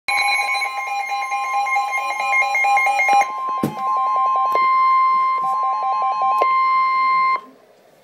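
Weather-alert radios sounding a Severe Thunderstorm Warning alert. A steady, unbroken NOAA Weather Radio warning alarm tone plays under a radio's own fast electronic beeping that alternates high and low. The beeping breaks off a little after three seconds and comes back in two short runs, with a knock and a few clicks along the way. All of it cuts off suddenly about seven seconds in.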